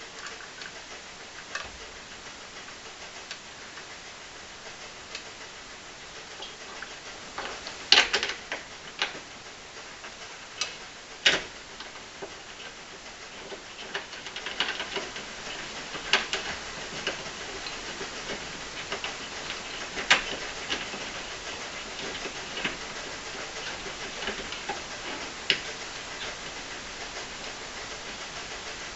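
Irregular clicks and light metallic taps from a Hella Supertone horn, its mounting bracket bolt and wiring connectors being handled and hand-tightened, over a steady hiss. The sharpest clicks come about eight and eleven seconds in.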